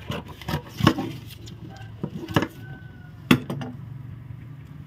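Scissors snipping through kraft pattern paper: a quick run of sharp snips in the first second or so, then a few more. A single loud, sharp knock a little past three seconds in, as the scissors are set down on the wooden table.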